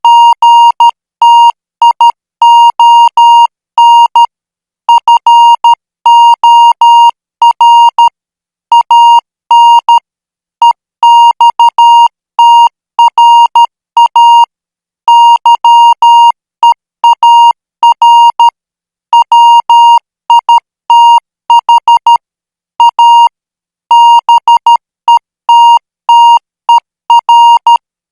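International Morse code practice signal sent at 12 words per minute: a single high beep keyed on and off in short dots and longer dashes, grouped into letters and words with brief gaps between them.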